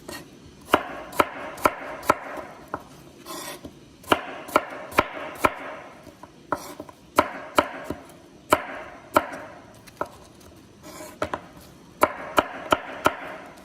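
Knife chopping half an apple into small pieces on a cutting board: sharp chops in short runs of about four, roughly two a second, with pauses between runs.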